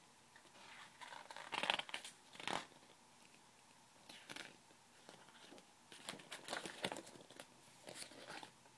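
Paper pages of a picture book being opened and turned by hand: a series of short, soft rustles and flaps of paper.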